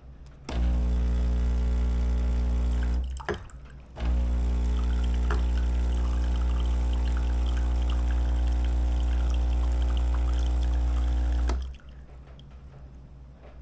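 Ultima Cosa Presto Bollente espresso machine's pump running with water flowing, a loud, steady hum. It runs for about two and a half seconds, stops for about a second, then runs again for about seven and a half seconds before cutting off.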